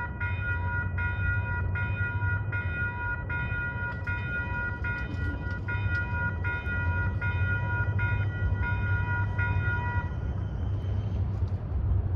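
A railroad bell ringing in a steady rhythm, a little more than one stroke a second, that stops about ten seconds in. Under it runs a steady low rumble of a diesel train.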